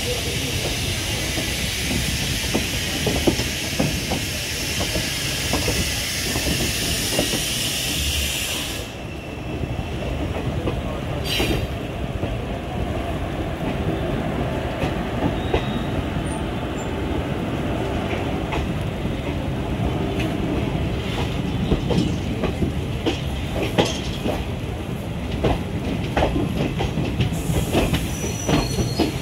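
Running noise of a train heard from on board: steel wheels rattling and clicking irregularly over rail joints and points, with a loud high rushing hiss while goods wagons pass on the next track. The hiss cuts off suddenly about nine seconds in and returns near the end as wagons pass close again.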